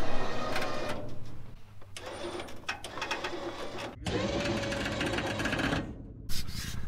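Electric winch motor whirring steadily under load as it reels in its line, pulling a side-by-side UTV up onto a flatbed trailer. The sound changes abruptly about four seconds in to a lower, steadier hum.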